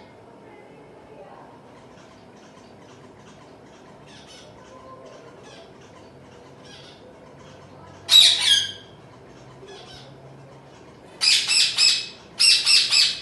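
Zebra finch chicks calling: faint short chirps throughout, one loud call about eight seconds in, then loud rapid calls in quick clusters near the end.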